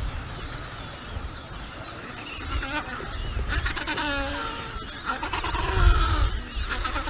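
Penguin colony calling: many overlapping squawks and chatter, with one louder braying call about four seconds in. Wind buffets the microphone throughout, hardest near the end.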